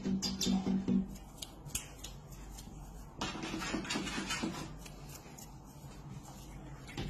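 Background music with plucked guitar notes, the first fading out about a second in; a scratchy rustle a little past three seconds in.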